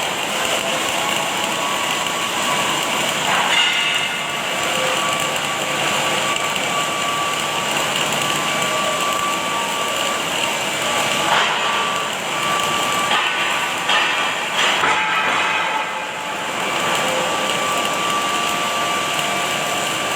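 Automatic welding machine at work: a steady hiss with a faint steady whine, broken by a few short crackles.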